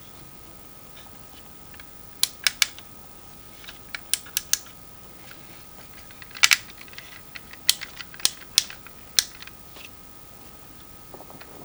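Sharp plastic clicks from a Transformers Masterpiece Dinobot figure being handled, coming in small clusters of two to four, with the loudest single click about six and a half seconds in.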